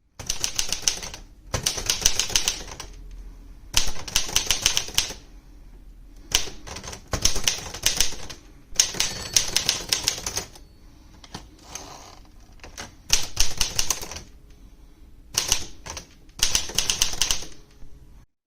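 1950s Smith Corona Silent Super manual portable typewriter being typed on: quick runs of key strikes come in bursts of a second or so with short pauses between them.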